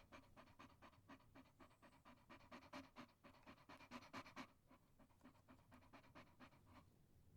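Dog panting: quick, even breaths, several a second, growing fainter about halfway through.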